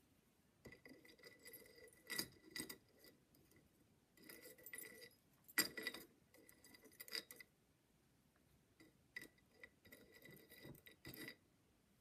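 Faint, scattered clinks and light taps with a short metallic ringing, from tweezers and small silver bracelet links being handled on a soldering block. They come in several clusters, the sharpest clink about halfway through.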